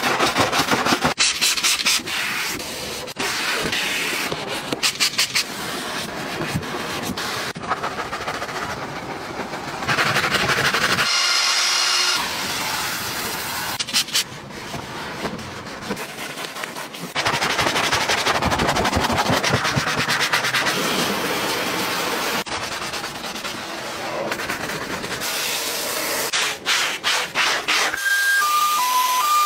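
Hand brushes scrubbing foamed car surfaces, an engine bay and a carpet floor mat: a series of short clips of rough, fizzing scrubbing, one cut after another. Near the end come a few short beeps, each lower than the last.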